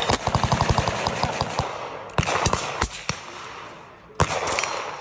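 Gunfire on a shooting range: a rapid burst of sharp shots, about eight a second, for the first second and a half, then single echoing shots about two seconds in and again near the end.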